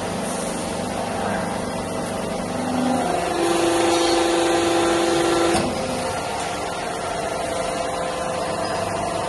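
Rebar threading and forging machine running: a steady machine hum with several steady tones. It grows louder about three seconds in and drops back abruptly with a click a little past halfway.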